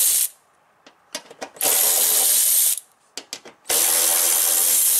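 Cordless electric ratchet spinning out 10 mm fender-liner screws in three short runs of about a second each, the first stopping just after the start, with small clicks between the runs.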